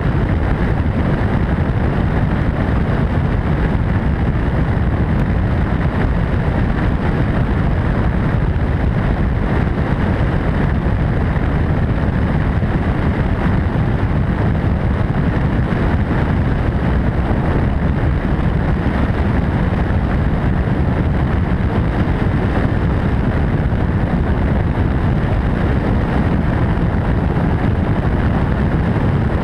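MD600N turbine-engined NOTAR helicopter in flight: a loud, steady rush of engine and rotor noise, heavy in the bass, mixed with wind on the microphone and unchanging throughout.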